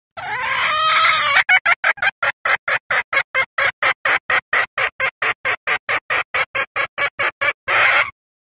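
Recorded call of a hen red junglefowl: a drawn-out call, then a fast, even run of short clucks, about four a second, ending in one short harsh burst. This is a call used to lure wild junglefowl cocks.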